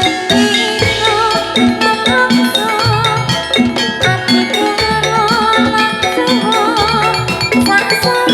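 Javanese gamelan music for a jathilan dance, with mallet metallophones and hand-drum strokes, and a woman singing long held notes with vibrato.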